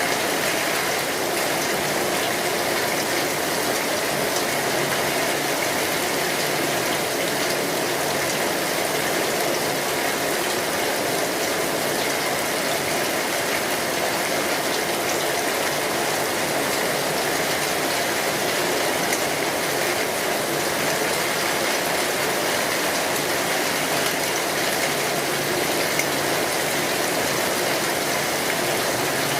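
Steady rain on a metal roof, an even hiss of drops with faint crackling from a wood fire.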